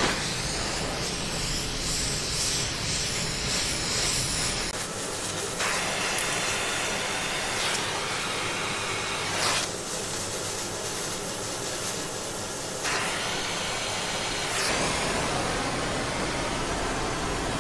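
Oxy-acetylene torch flame hissing against a steel tabletop, with steam hissing off the hot spot as it is quenched with water to heat-shrink the warped metal.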